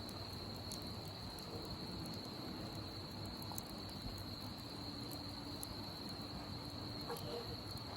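Wood campfire with scattered sharp crackles and pops over a steady, high-pitched insect trill from crickets.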